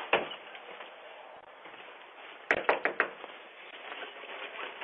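Steady background hiss with a single click at the start and a quick run of about five sharp taps about two and a half seconds in.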